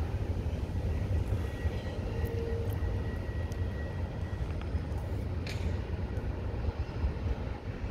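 Double-stack intermodal freight cars rolling past on the rails, a steady low rumble of wheels and cars.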